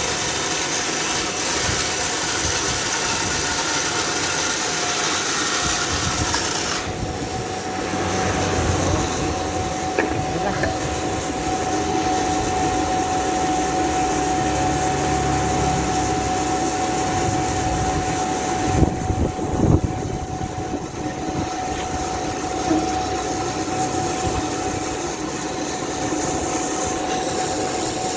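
Chainsaw engine running under load while ripping a log lengthwise, a steady engine tone under the cutting noise. The high cutting hiss drops away briefly twice, about seven seconds in and again around nineteen seconds.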